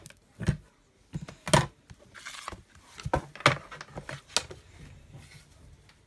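Plastic embossing plates and a 3D embossing folder being lifted off, handled and set down on the work mat: a series of sharp clacks and knocks, with a brief paper rustle as the folder is opened.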